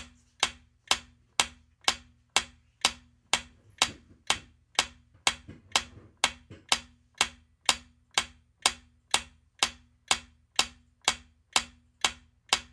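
Clock-like ticking of a quiz countdown timer sound effect: a steady, sharp tick about twice a second while the answer time runs out.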